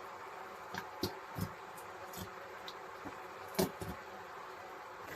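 A three-burner camping gas stove burning with a steady buzzing hiss. A few light clicks and knocks of a utensil against the pan sound over it, the loudest about three and a half seconds in.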